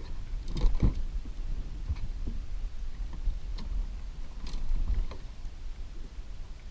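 Scattered knocks and bumps of people moving and handling gear in a small fishing boat, over a steady low rumble.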